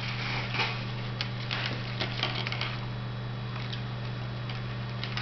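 Plastic drinking straws and line being handled while knotting the straws together: scattered light clicks and rustles, a few sharper taps about half a second and two seconds in, over a steady low hum.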